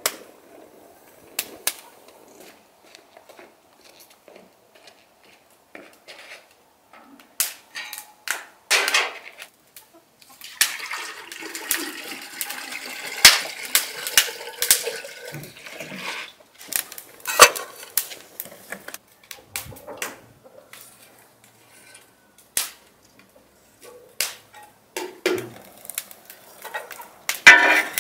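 Wood fire crackling in a metal grill, with scattered sharp pops. From about ten seconds in, water is poured from a large plastic bottle into a samovar for several seconds, and there is a louder clatter near the end.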